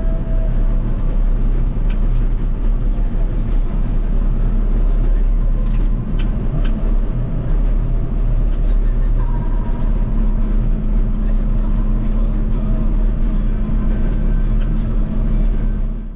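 John Deere tractor running steadily under load while mowing grass, its engine hum heard from inside the cab along with the mower working.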